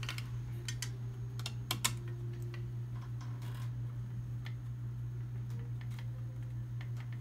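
Scattered small clicks and taps of a hand screwdriver turning screws into a dental scanner's main board, the loudest about two seconds in, over a steady low hum.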